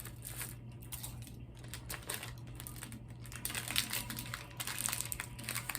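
A house fire burning with irregular crackling and popping, heard through a doorbell camera's microphone over a steady low hum.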